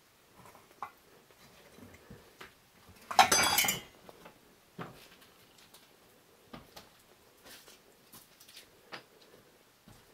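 A brief, loud metallic clatter about three seconds in, like metal objects or dishware rattling together, with scattered light knocks and creaks before and after.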